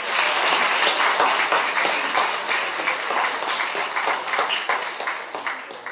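Audience applauding, many hands clapping together; it dies away near the end.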